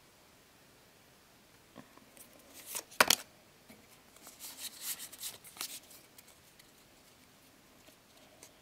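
Pokémon trading cards being handled in the hands, rustling and crackling: a sharp crack about three seconds in, then a run of crackling clicks and rustles for a second or two.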